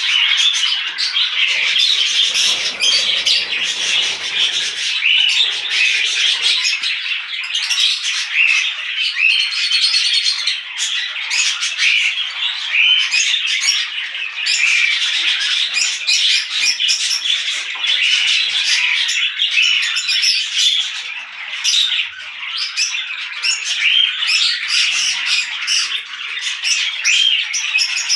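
A mixed flock of small parrots (budgerigars, lovebirds, cockatiels and kakarikis) chattering and squawking without a break, many birds calling over one another.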